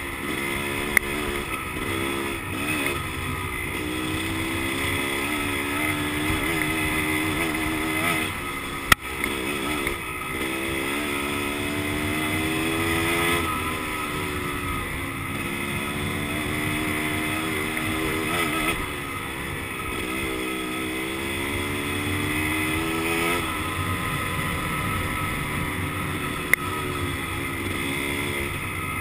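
Dirt bike engine running hard while climbing a trail, its pitch repeatedly rising and dropping as the throttle opens and the gears change. Three sharp knocks stand out, about a second in, near the middle and near the end.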